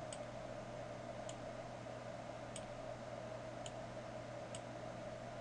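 Faint computer mouse clicks, five of them about a second apart, made while dragging connections between nodes, over a steady faint hum.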